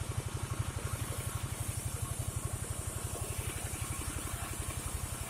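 The engine of a portable sawmill (gergaji slendang) running steadily with a rapid, even thumping; no blade cutting is heard.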